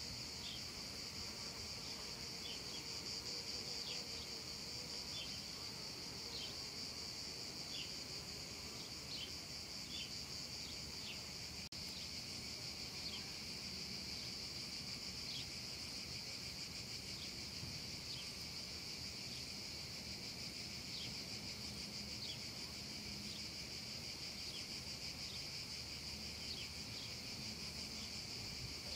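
Cicadas singing in a steady, unbroken high-pitched drone, with short separate chirps recurring about once a second over it.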